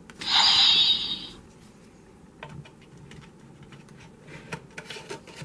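A hissing, whooshing sound effect lasting just over a second, followed from about halfway on by a run of light, sharp clicks and taps that grow busier toward the end.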